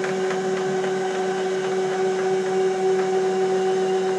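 Stepper motors of a home-built CNC router whining steadily as the gantry traverses at constant speed, carrying out a custom M-code offset move from the spindle position to the laser position.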